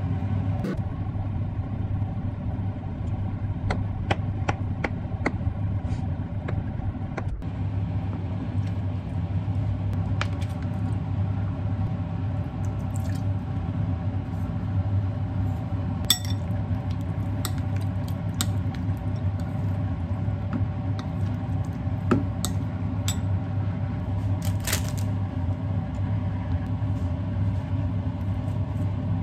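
A steady low mechanical hum throughout, with scattered light clicks and clinks of food prep: cut tomato and tofu going into a glass bowl and mushrooms handled on a wooden cutting board.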